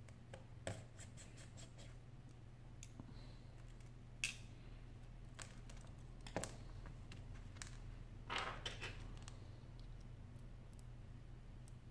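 Small clicks, taps and scrapes of hand tools and tiny metal parts as an iPhone 6 display assembly is taken apart: sharp clicks about four and six and a half seconds in, and a short scratchy rustle a little after eight seconds, over a low steady hum.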